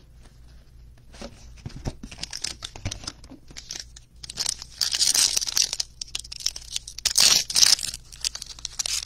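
Silver foil trading-card pack wrapper being handled and torn open, with loud crinkling rustles about halfway through and again near the end. Before that, light clicks and taps from the cardboard box being opened.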